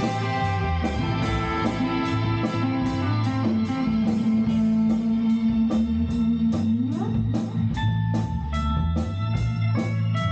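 Band playing an instrumental jam: electric guitar over bass and a steady drum beat. A long held note slides upward about seven seconds in.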